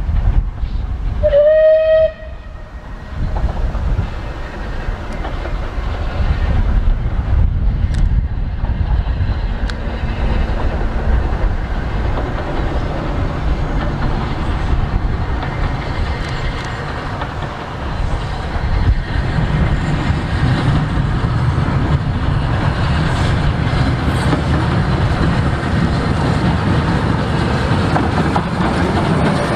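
A steam locomotive's whistle sounds once for about a second, then Bulleid Merchant Navy Pacific 35006 approaches and passes with its train. The rumble of wheels on the rails builds and then holds steady, with wind on the microphone.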